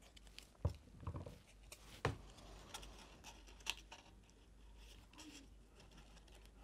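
Faint handling of paper card: light rustling and a few soft taps and clicks as a card mat is glued and pressed into place on a folded pop-up card.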